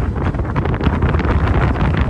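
Wind buffeting the microphone: a loud, uneven rumble with gusty rushing.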